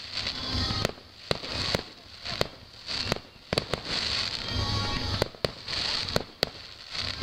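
A fireworks display: repeated sharp bangs, about one every half second to a second, with crackling between them, while music plays along.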